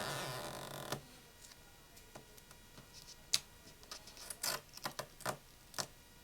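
About a second of scraping, stretching noise, followed by a handful of sharp clicks and taps: small tools and parts handled on the phone while its battery's adhesive pull tab is pulled out.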